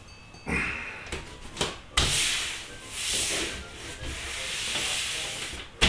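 Rubbing strokes across a workbench surface as it is wiped or scrubbed clean: a few short rubs, then longer strokes that swell and fade from about two seconds in.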